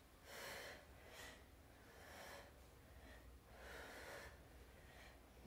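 Faint breathing of a woman exercising, short breaths about once a second over low room hum.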